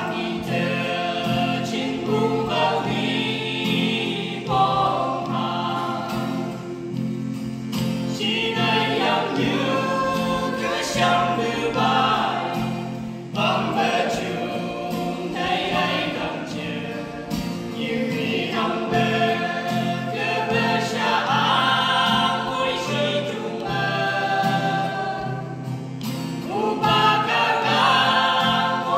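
A small mixed group of women's and men's voices singing a gospel song together in harmony, accompanied by a strummed acoustic guitar.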